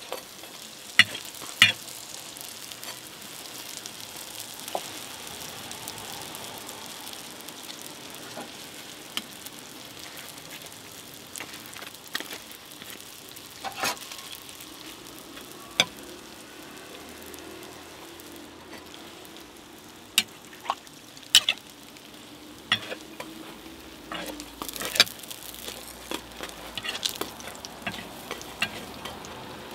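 Hotteok frying in oil on a flat griddle, sizzling steadily, with sharp clicks and knocks scattered throughout.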